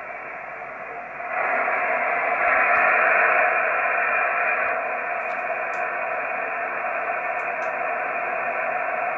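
Hiss from an Icom IC-910 transceiver's receiver in upper-sideband mode on the 23 cm band, an empty channel with no voice heard. The hiss steps up louder about a second in, then stays steady.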